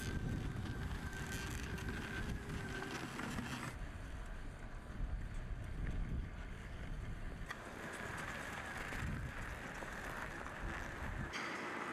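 Small tracked robot snow plough running through snow: a faint steady motor whine over low rumbling noise, with wind on the microphone. The sound changes abruptly twice, about four and seven and a half seconds in.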